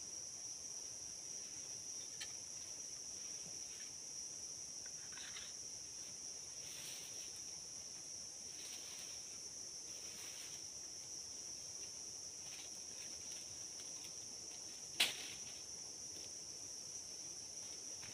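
Steady high-pitched insect chirring, with faint intermittent rustles of bamboo and dry leaves being handled and a single sharp click late on.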